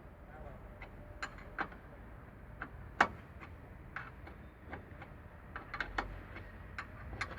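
Irregular sharp clicks and taps at no steady rhythm, the loudest about three seconds in, over a faint low hum.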